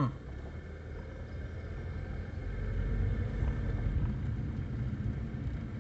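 Car running and driving on a wet road, heard from inside the cabin: a steady low engine and tyre rumble that grows louder about two seconds in as the car moves off.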